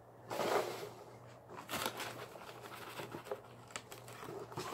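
Paper and a cardboard shipping box packed with foam packing peanuts being handled, rustling and crinkling, with the loudest rustle about half a second in and small scattered rustles and ticks after.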